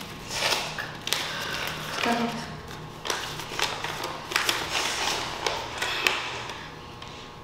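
A sheet of paper rustling and crackling in irregular bursts as it is unfolded and handled.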